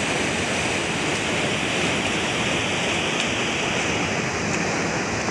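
Fast-flowing canal water rushing and churning steadily around a swimmer, an even noise with no distinct splashes.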